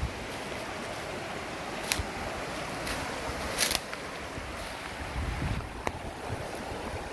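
Rushing water of a waterfall and its stream, a steady wash of noise. A few sharp clicks or knocks sound over it, about two, three and six seconds in.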